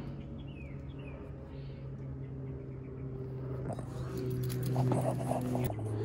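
Steady low hum with a few faint chirps in the first second, then a dog whining from about four seconds in.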